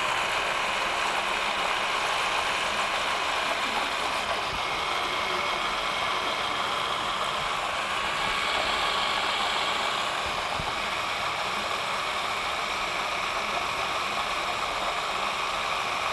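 Electric food processor running steadily, its blade puréeing a thick bean and artichoke dip.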